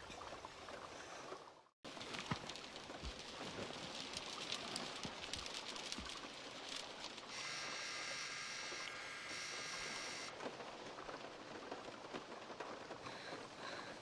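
Steady rain pattering on a car, with two faint dull thumps about three seconds apart. For about three seconds midway comes a high electronic whine from night-vision goggles.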